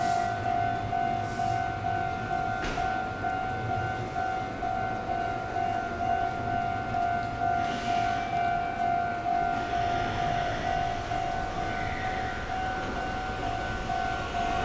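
Railway level-crossing alarm ringing on and on, a repeated electronic clang at an even beat. From about ten seconds in, the running noise of an approaching train grows beneath it.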